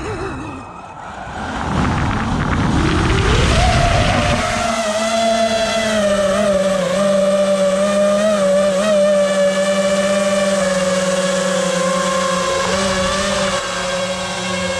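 FPV quadcopter's brushless motors whining. The pitch swings up and down for the first few seconds, rises about four seconds in, then holds a steady, slightly wavering whine at constant throttle.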